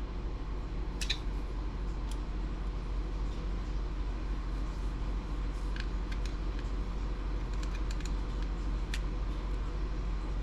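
Scattered small clicks and taps of small metal and plastic lock parts being handled and taken apart, over a steady low hum.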